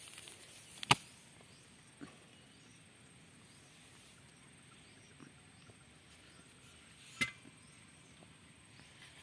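Faint outdoor background broken by three sharp clicks: a loud one about a second in, a softer one a second later, and another near the end.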